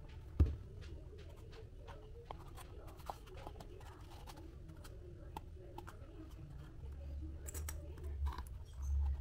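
Cardboard being handled and worked by hand on a work surface: scattered small clicks and rustles, a sharp tap about half a second in, and low dull bumps near the end.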